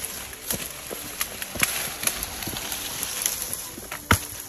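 Dry brush and wood being moved through: rustling with irregular snaps and knocks, and one sharper knock near the end.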